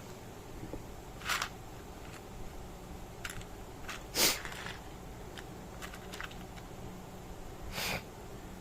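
Handling noises from a small electronic part being picked up on a workbench: three short rustles, the loudest about four seconds in, with a few light ticks between them.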